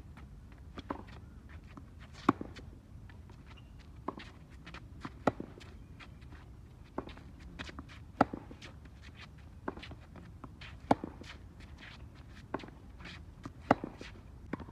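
Tennis rally on a hard court: the sharp pops of racket strings striking the ball, the loudest about every three seconds, with softer ball bounces and the far player's hits between them.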